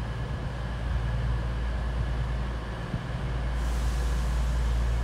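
Class 222 Meridian diesel multiple unit standing at the platform, its underfloor Cummins diesel engines idling with a steady low hum and a few steady higher tones. A steady high hiss joins about three and a half seconds in.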